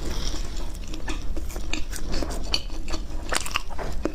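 Close-miked mukbang eating sounds: a run of small, sharp, irregular clicks and clinks of cutlery and dishes, with a brief hiss near the start.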